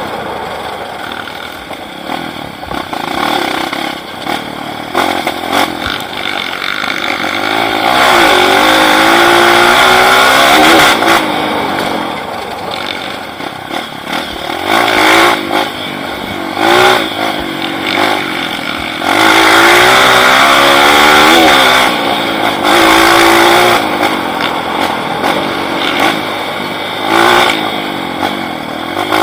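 Off-road motorcycle engine revving up and down as it rides the trail, with long loud surges about a third of the way in and again past the middle, and shorter bursts of throttle in between.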